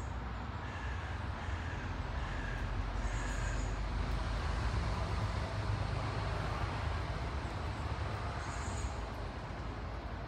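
Steady low rumble of distant traffic, with a few short high bird chirps about three seconds in and again near the end.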